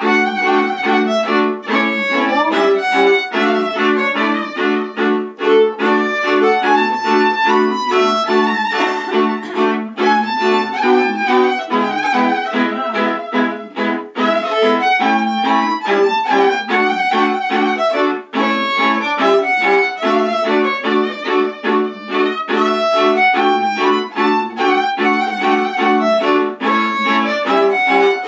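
Two fiddles playing a Romanian colindă (Christmas carol) tune: a lively bowed melody over a steady, rhythmic pulse of repeated chords.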